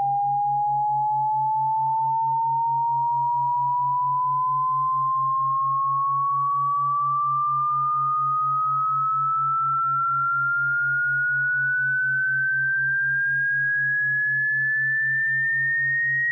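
Synthetic cat-repellent sound: a single pure electronic tone rising slowly and steadily in pitch, over a low hum that pulses about three times a second.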